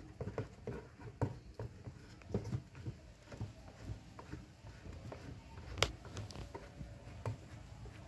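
Faint, scattered clicks and scrapes of a long metal bolt being worked through the hub of a plastic washing-machine pulley and gearbox, with one sharper click about six seconds in.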